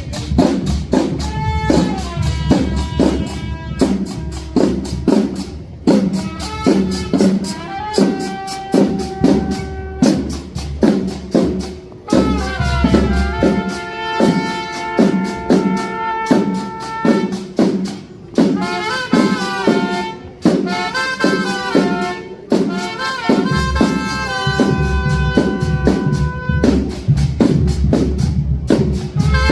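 Trumpet playing a melody of held and running notes over a steady drum beat, as brass band music.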